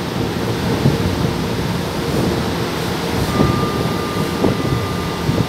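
Subway train standing at an underground platform: a steady low rumble of its running equipment, echoing in the station. A thin steady high whine joins a little over three seconds in.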